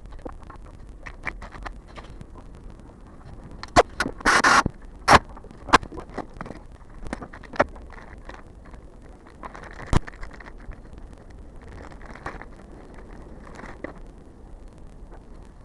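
Hyundai Grandeur HG giving off scattered clicks, knocks and rattles over a low steady rumble, with a louder scraping rattle about four seconds in and a sharp knock near the ten-second mark: the unwanted front and rear noises that the car has been recorded for.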